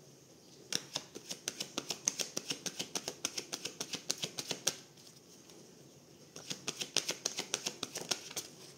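A deck of tarot cards shuffled by hand: two runs of quick, crisp clicks at about seven a second. The first lasts about four seconds, and the second, about two seconds long, comes after a short pause.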